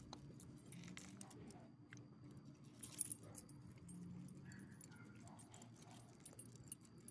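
Faint sounds of a small dog eating shredded rotisserie chicken from a hand: soft licking and chewing, with light metal jingling from its collar and leash clip and one sharper click about three seconds in.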